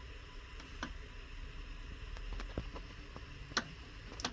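Faint low hum with a handful of short, irregularly spaced clicks and ticks; no music is playing.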